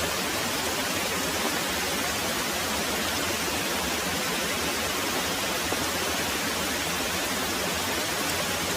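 Very heavy rain pouring steadily, a dense even hiss with no thunder.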